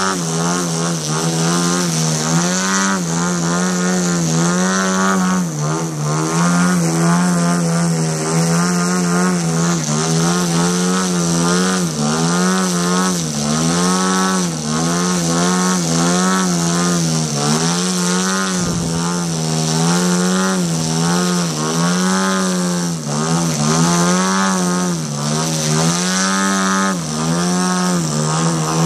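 Radio-controlled aerobatic model plane's motor and propeller running at high power as the plane hovers nose-up, the pitch rising and falling again and again as the throttle is worked.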